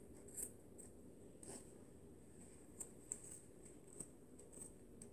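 Near silence, with a scatter of faint clicks and rustles from small objects being handled close by.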